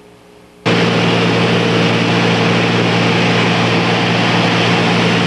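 Light aircraft's engine and propeller heard inside the cabin: a loud, steady drone with several constant engine notes and rushing noise, cutting in suddenly about a second in after a quiet moment.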